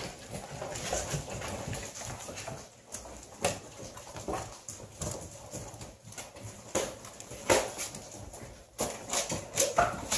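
Vizsla puppies' claws clicking and scrabbling on a tile floor, with irregular knocks against cardboard boxes.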